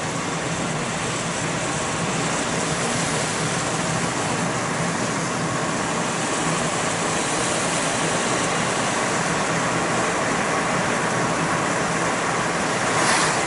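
Steady road and tyre noise of a car driving, heard from inside the cabin, with a brief louder rush near the end.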